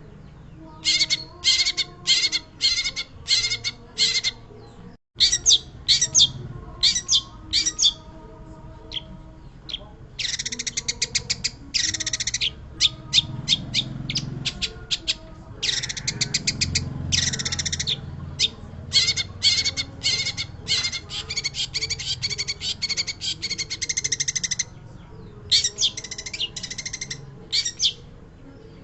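Long-tailed shrike (pentet) in full song: loud, harsh, scratchy notes delivered in quick chattering runs and bursts, some runs lasting several seconds. The audio drops out for a moment about five seconds in.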